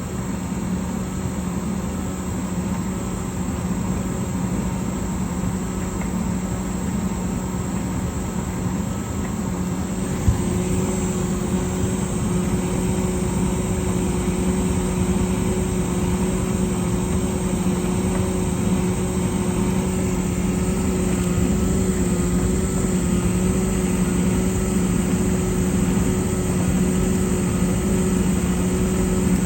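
Bauknecht TK872L heat pump tumble dryer running with a steady low hum. About ten seconds in there is a click, and the hum grows a little louder with a higher tone added.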